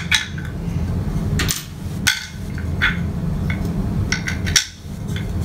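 Small metal nuts clicking and clinking as they are picked from a pile of hardware and pushed into slots in a 3D-printed plastic part: a run of short sharp clicks at uneven intervals, over a steady low hum.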